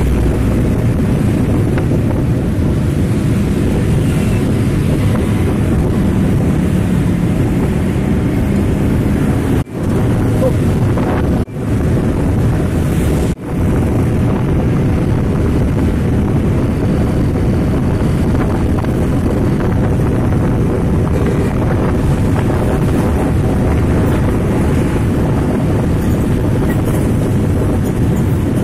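Steady wind rushing over the microphone from a moving vehicle, mixed with road and engine noise. The sound drops out briefly three times, about ten, eleven and a half and thirteen seconds in.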